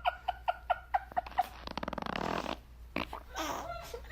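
Quick rhythmic laughter, then a baby's fart, a buzzy rattle lasting about a second, near the middle.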